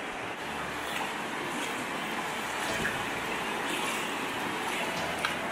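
Shallow river rushing steadily over rocks and stones, a constant even rush of water.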